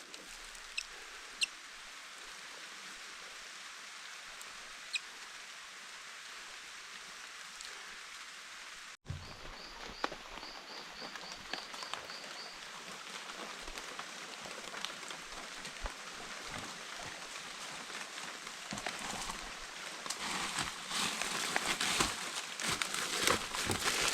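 Forest ambience: a steady hiss, and after a cut a bird's quick run of about ten short high chirps. Scattered light crackling and rustling grows denser near the end.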